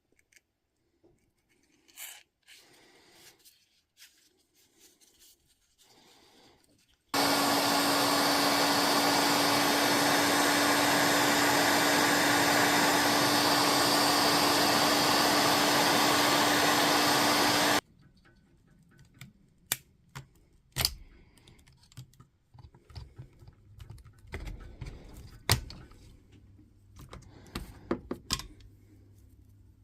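An electric motor runs steadily for about ten seconds with a constant hum, switching on and off abruptly. Light clicks and taps of tools being handled follow.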